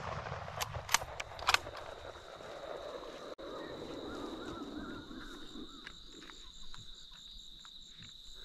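Crickets chirping in a steady high trill through the night, with a few sharp clicks in the first two seconds.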